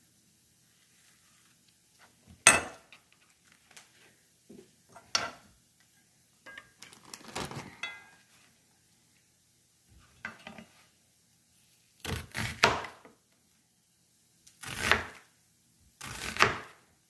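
Kitchen knife cutting a large onion on a cutting board: a few sharp knocks and short scraping cuts, spaced a few seconds apart.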